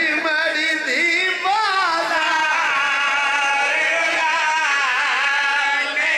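Several men's voices chanting a mournful lament together through microphones and a loudspeaker system, in long, wavering held notes.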